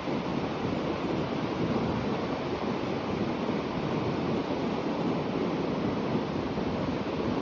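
Sea waves breaking on the shore: a steady, unbroken rush of surf with no single crash standing out.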